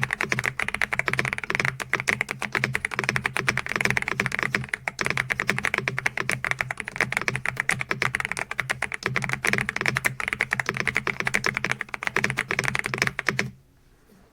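Fast, continuous typing on the AULA S98 Pro mechanical keyboard: a dense stream of keystroke clacks that stops abruptly near the end.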